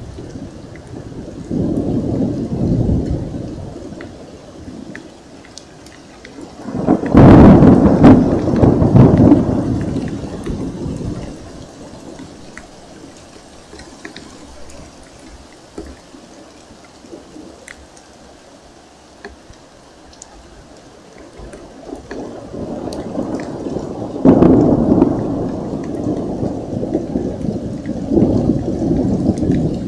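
Thunder rolling over steady rain. A sudden loud clap about seven seconds in rumbles on for several seconds, then comes a quieter stretch of rain with scattered drips, and another long peal builds near the end.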